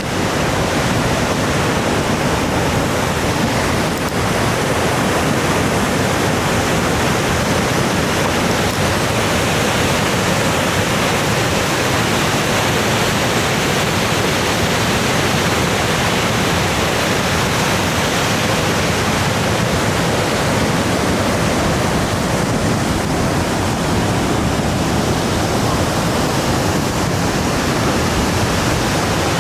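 Tumalo Falls' water rushing over the brink, a loud, steady roar of falling water.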